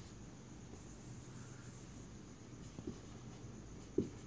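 Marker pen writing on a whiteboard: faint scratching strokes, with a few light taps of the pen on the board, the sharpest near the end.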